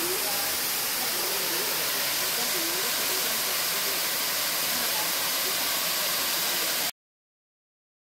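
Waterfall rushing steadily, a dense even hiss of falling water. It cuts off abruptly about seven seconds in.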